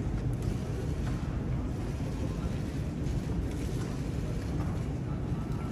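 Steady low rumble of background noise in a large underground metro hall.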